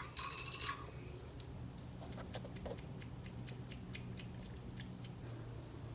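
Faint, irregular small ticks and taps, a cat moving about in a bathroom sink, over a steady low hum.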